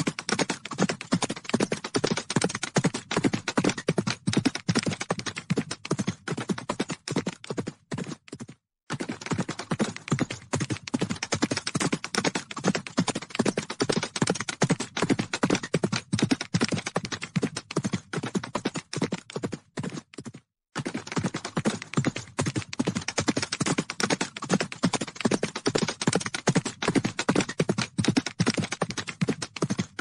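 Hoofbeats of a large herd of horses galloping: a dense, rapid drumming of many hooves on the ground. It cuts out briefly twice, about 9 seconds in and again about 21 seconds in.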